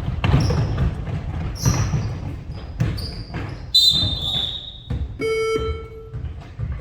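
Basketball game in a gym: a ball bouncing and sneakers squeaking on the court, with voices. A short high whistle sounds about four seconds in, and a buzzer sounds briefly just after five seconds.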